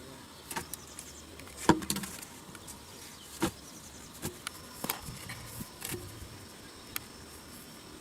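A series of irregular sharp knocks and clicks, the loudest a little under two seconds in. From about halfway an insect keeps up a steady high-pitched buzz.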